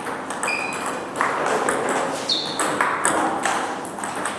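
Table tennis ball clicking off bats and the table in a rally, several sharp ticks a second, with the odd click from a neighbouring table. One bat is faced with Sauer & Troeger Schmerz OX, a spongeless long-pimpled rubber on a RED+BLACK Kazak C blade. Two short high squeaks come about half a second in and a little past two seconds.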